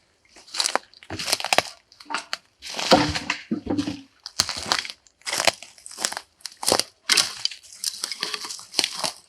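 Dry forest litter of leaves and twigs crunching and rustling in a series of irregular short bursts as the ground is cleared of debris.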